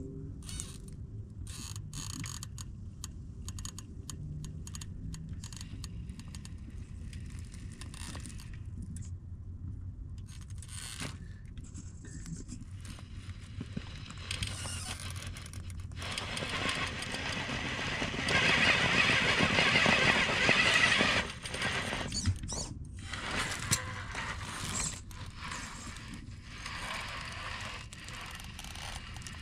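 RC rock crawler driving up rock, with its electric drivetrain whirring under load and its tyres scraping and clicking on the stone. A louder, rougher stretch of drivetrain noise and scrabbling comes about two-thirds of the way in.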